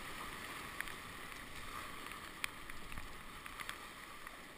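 Steady rush of a flooded whitewater river running through rapids, heard from a kayak in the current, with scattered sharp ticks.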